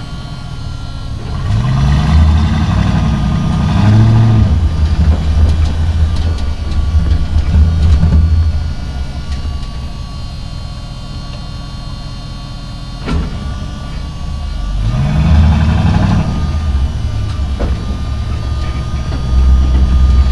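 A semi truck's diesel engine runs with a deep rumble and revs up twice, its pitch climbing each time. A single sharp click comes shortly before the second rev.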